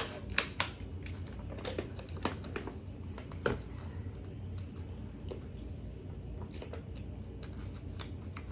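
Close-up crunching and chewing of a crisp cracker snack, with sharp crunches in the first few seconds, then fainter scattered chewing.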